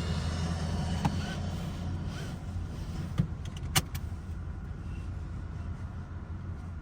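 Mitsubishi Outlander driving, its engine and road noise a steady low rumble inside the cabin, with a few sharp clicks, the loudest a little before four seconds in.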